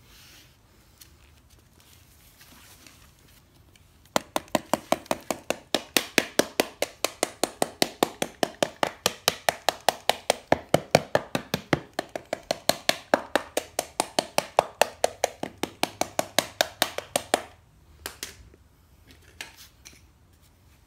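A metal loaf-pan pattern set in packed casting sand tapped rapidly with a hand tool, about four to five sharp knocks a second for some thirteen seconds, then stopping abruptly; a couple of lighter knocks follow. This is the pattern being rapped loose from the sand before it is lifted out.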